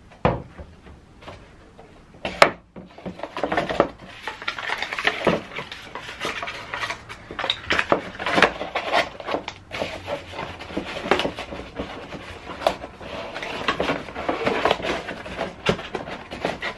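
A leather bicycle saddle being packed back into its cardboard box and the box folded shut by hand: cardboard rustling and scraping with small knocks on the bench, and one sharp knock about two seconds in.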